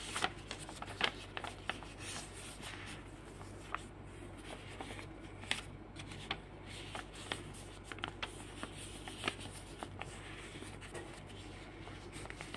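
A sheet of white paper being folded over and creased by hand: soft rustling with irregular small crackles and clicks.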